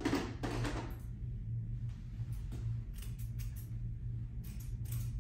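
A brief rattle as a tool is taken from the grooming cart, then short comb strokes raking loose undercoat out of a golden retriever's coat, coming in quick runs about three seconds in and again near the end. A steady low hum runs underneath.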